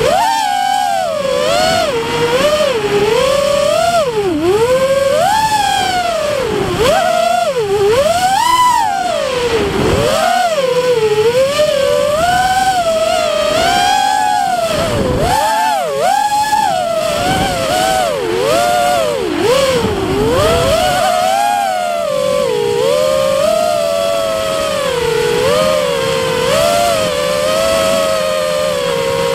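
Multirotor FPV drone's electric motors and propellers whining, the pitch swooping up and down quickly and continuously with the throttle.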